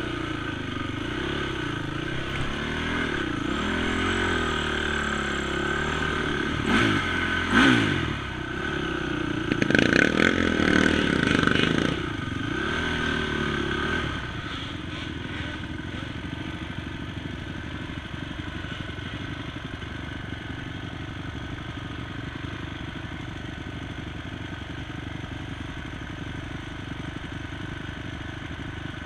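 ATV engine revving up and down, with the quad clattering and knocking over the rough dirt trail, loudest about seven to twelve seconds in. From about halfway through, the engine falls to a quieter, steady low running.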